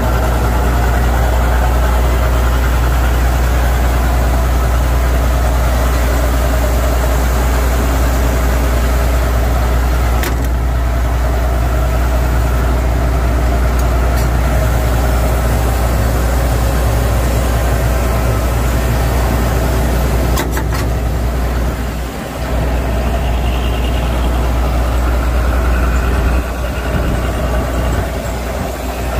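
John Deere 9650STS combine's diesel engine idling steadily, heard close up beside the machine.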